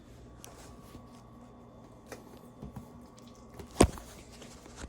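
Ketchup being squeezed out of its bottle into the ceviche: soft squishing and small clicks, with one sharp click a little before the end.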